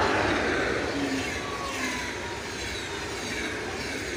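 Electric-hauled passenger train passing close by at speed. The locomotive goes by at the start, the loudest moment, followed by the steady rumble and hiss of the passenger coaches' wheels rolling over the rails.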